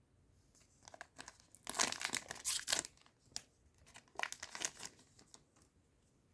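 Foil trading card booster pack being torn open and crinkled by hand, in two bursts of crackling, the louder one about two seconds in and another about four seconds in.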